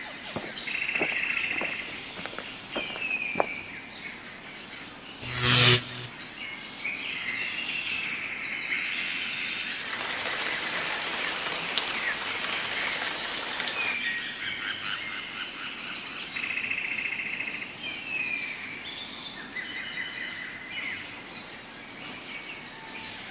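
Outdoor birdsong: birds calling over and over with short trills and falling chirps, above a steady high thin whine. One loud short sound cuts in about five seconds in, and a hiss runs for a few seconds near the middle.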